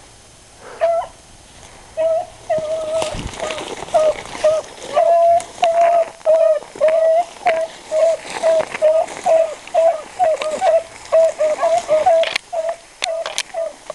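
Beagles baying on a running rabbit's scent trail: short, pitched hound barks repeating about twice a second, starting about a second in.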